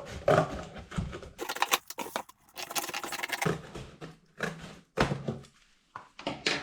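Cardboard box being cut across its sides: two quick runs of crisp crunching cuts, with knocks and rustles as the cardboard is handled.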